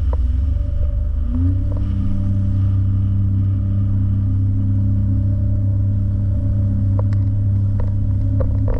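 Sea-Doo jet ski engine running at speed, a steady drone that climbs in pitch about a second and a half in as the throttle opens, then holds.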